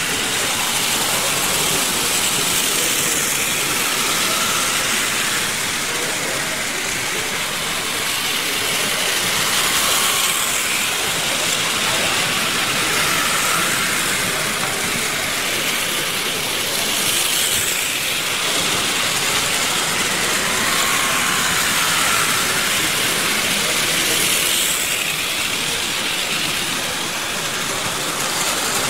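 Playcraft electric model trains running on a layout: a steady whir and rattle of motors and wheels on track, swelling softly every few seconds as a train passes close.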